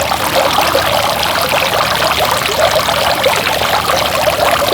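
Water pouring and splashing steadily down a tiered outdoor fountain over six feet tall, a continuous trickling sound like a running creek.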